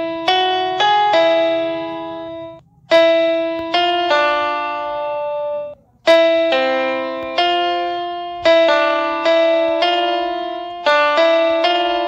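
Background piano music: a slow melody of struck notes and chords, each dying away, with two brief breaks.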